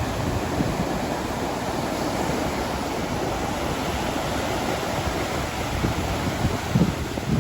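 Ocean surf: waves breaking and washing in a steady rushing wash, with wind buffeting the microphone in low gusts near the end.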